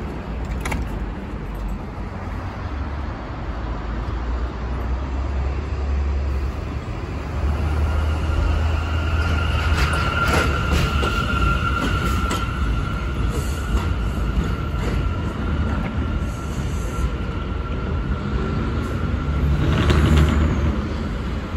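R179 New York City subway train running on elevated track: a steady low rumble with a steady high whine through the middle, a run of rail clacks, and a brief high wheel squeal near the end.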